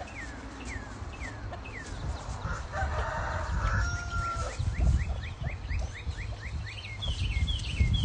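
Chickens clucking and squawking in alarm as a dog runs at them: short falling calls early on, a harsher squawk in the middle, then a quick run of short calls near the end. A low rumble runs underneath.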